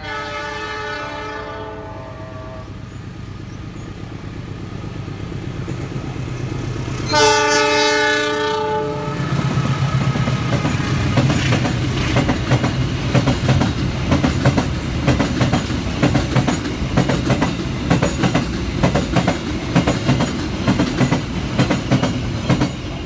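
Train horn sounding for about two seconds, then a louder blast about seven seconds in. After it comes a freight train of empty container flat wagons passing close by: a steady rumble with rapid clacking of wheels over the rail joints.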